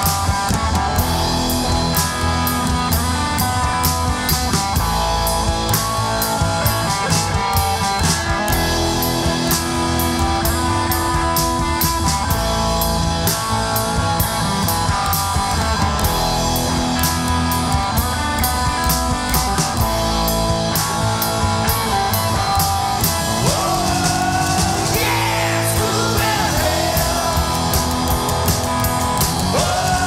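Rock band playing an instrumental passage: steady drum kit beat under electric guitars, with sliding, bending notes near the end.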